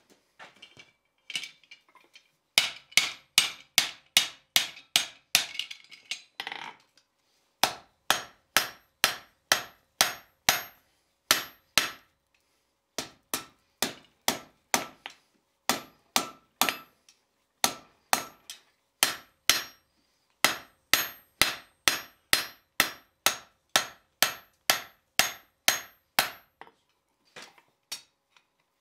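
Blacksmith's hand hammer striking a red-hot steel bar on an anvil, runs of blows about two to three a second with a bright ring from the anvil on each strike, broken by short pauses as the bar is turned or repositioned. It is the forging of a flat-bar coat hook.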